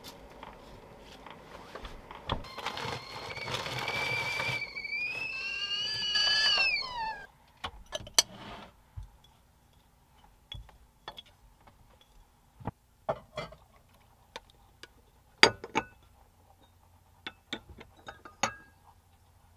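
Stovetop kettle whistling over a hiss of steam for about five seconds: the whistle climbs slightly, then glides down and stops. After that come scattered light clinks and knocks of a French press and cups being handled.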